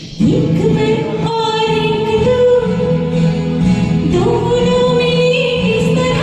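A woman singing a Hindi film song over a karaoke backing track. She holds long notes, slides up into the first one just after a brief dip at the start, and steps up in pitch about four seconds in.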